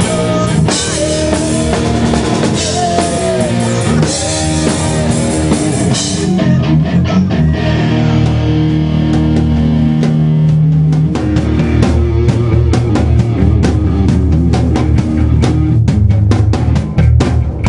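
A heavy metal band playing live on distorted electric guitars, bass and drum kit. A lead guitar line glides up and down in pitch in the first few seconds, and the drums and cymbals hit harder and more steadily in the second half.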